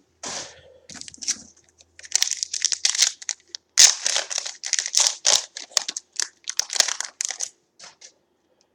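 Foil trading-card pack being torn open and crinkled by hand, a run of irregular crackles and rustles.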